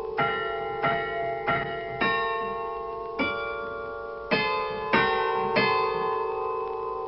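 Carillon bells playing a slow tune: about eight strikes of different pitches, each ringing on under the next, with a slightly longer pause about three seconds in.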